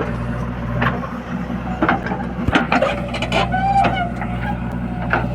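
Diesel engine of heavy earth-moving machinery running steadily at a low hum, with several sharp knocks and clanks scattered through it.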